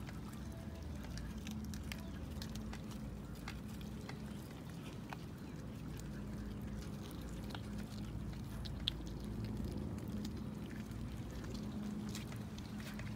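Several cats chewing raw fish, with short wet clicks and smacks scattered irregularly over a steady low hum.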